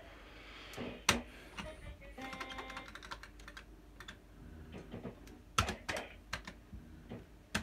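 QPS Yabba Dabba Dough fruit machine in play: sharp clicks of its buttons and reels, with a short run of electronic beeps about two seconds in. Several more clicks come in quick succession near the end.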